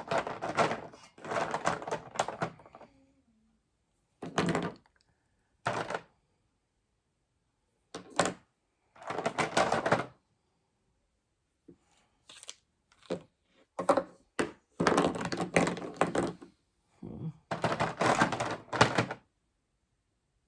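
Plastic alcohol markers clattering and clicking against one another as they are rummaged through, in irregular bursts with silent gaps between, sparse at first and closer together in the second half.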